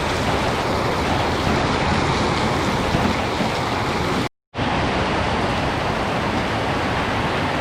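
Steady rushing noise of water, like rain or water running through flooded fields, broken by a split-second dropout about four seconds in.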